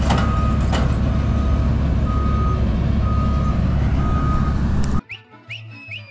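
New Holland CX5090 combine harvester running loud, with a warning beeper sounding about once a second. About five seconds in, the machine sound cuts off suddenly and background music takes over.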